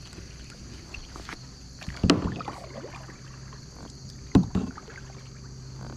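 Kayak paddle strokes, the blade dipping and splashing in the water, once about two seconds in and again just after four seconds. The second stroke begins with a sharp knock.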